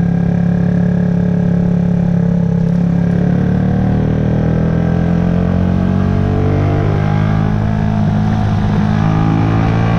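2009 Yamaha YZF-R125's 125 cc single-cylinder four-stroke engine running steadily under way, its pitch rising gently over the second half as the revs climb.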